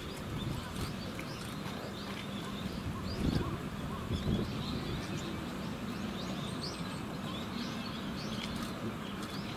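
Small birds chirping in short, scattered calls over a steady low background hum, with two brief low rumbles about three and four seconds in.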